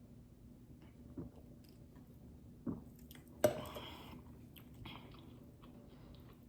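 Close-miked chewing and mouth sounds of a person eating, with a few soft smacks and one sharper click-like bite about halfway through.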